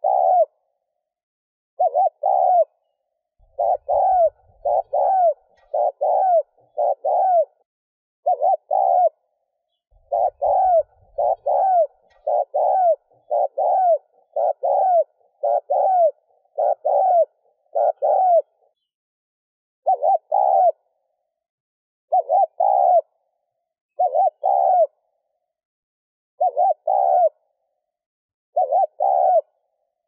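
Spotted dove's 'gù' coo: short arched notes, mostly in quick pairs, repeated about once a second with a few brief pauses.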